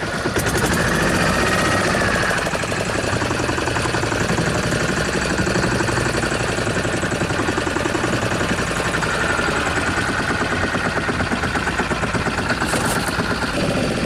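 Fishing boat's engine running steadily at low revs, with a fast, even pulsing beat.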